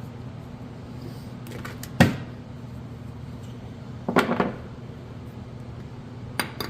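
Tool parts and packaging being handled: one sharp knock about two seconds in, a brief rustle and clatter around four seconds, and a few light clicks near the end, over a steady low hum.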